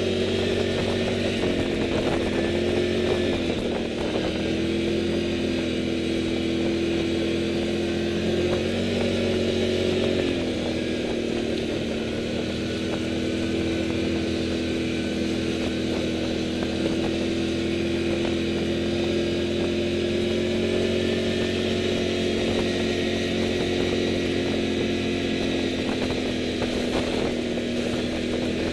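Touring motorcycle engine running steadily while riding a dirt track, its pitch dipping briefly twice as the throttle eases and picks up again.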